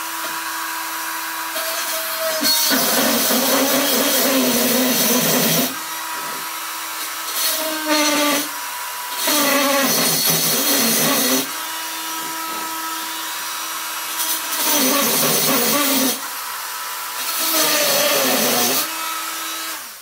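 Handheld electric drill with a small bit running steadily, breaking four times into louder, rougher grinding as the bit bores through paint clogging the drain holes in a bicycle fork's ends. The drill stops at the end.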